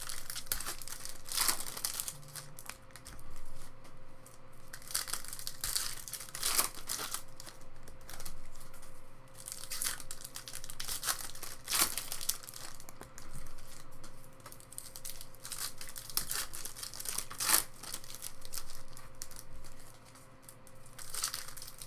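Foil wrappers of Topps Chrome baseball card packs being torn open and crinkled by hand, in irregular bursts of crackling.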